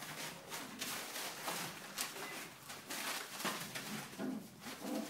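Young puppies scampering and tussling on loose newspaper, with irregular rustling and crinkling of the paper. Short low-pitched puppy vocalizations come in near the end.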